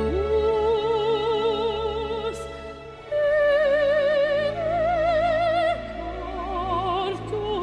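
Operatic singing as background music: a voice holding a few long notes with wide vibrato, moving to a new pitch every second or two.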